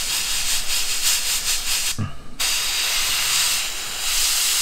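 Airbrush spraying primer: a steady hiss of air and paint that stops briefly about two seconds in, then starts again.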